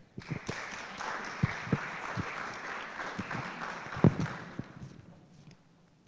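Audience applause that begins right away and fades out about five seconds in, with a few low thumps; the loudest thump comes about four seconds in.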